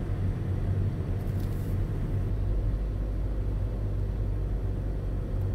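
Car driving along the road: a steady low rumble of engine and tyres.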